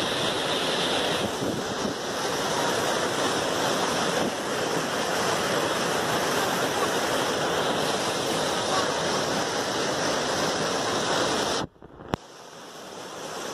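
Muddy floodwater rushing over rapids in a steady, loud rush, with wind buffeting the microphone. About twelve seconds in, the sound cuts off abruptly and a click follows. The rush of water then swells back in.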